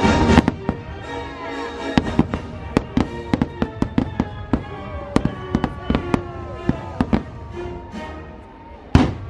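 Fireworks show: aerial shells exploding in quick, irregular succession, a string of sharp cracks and bangs over a quieter orchestral show soundtrack. The bursts thin out, then one loud bang comes near the end.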